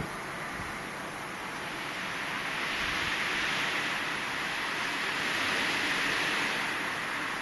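Blizzard wind blowing steadily with a rushing hiss, swelling into a stronger gust a few seconds in.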